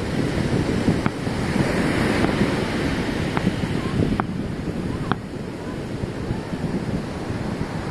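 Ocean surf washing on the beach, with wind buffeting the microphone. A few faint sharp pops or clicks cut through it about a second in and again around the middle.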